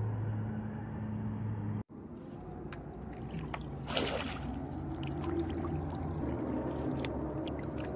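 Distant race cars, a steady low engine drone, until the sound cuts out about two seconds in. Then water trickling and dripping around a kayak, with small clicks and a louder splash about four seconds in, over a fainter low drone.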